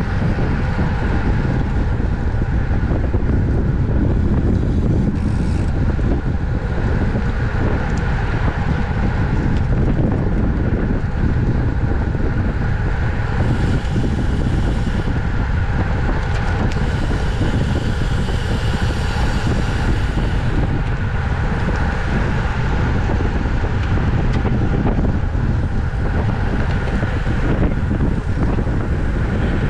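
Wind rushing over the microphone of a camera on a road bike ridden at race speed, steady throughout, with a brighter hiss coming in twice near the middle.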